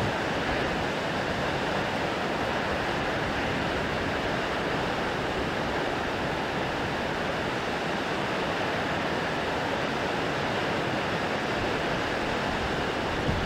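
Shōmyō Falls, Japan's tallest waterfall, rushing with a steady, even noise that does not let up.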